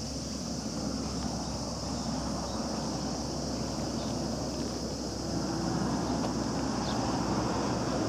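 Wind noise on the microphone outdoors, growing louder about five seconds in, over a steady high-pitched hiss.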